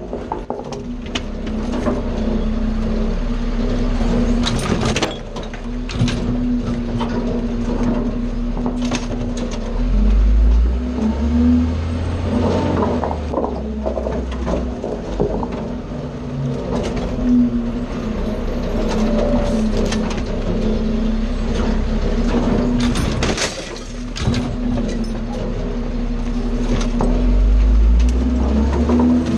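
Garbage truck running and moving, its hopper and body rattling and clanking over a steady hum. The engine's low note swells twice, about ten seconds in and again near the end.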